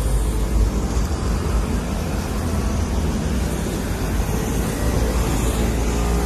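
Steady low rumble of outdoor city noise, heaviest in the deep bass, with no distinct events.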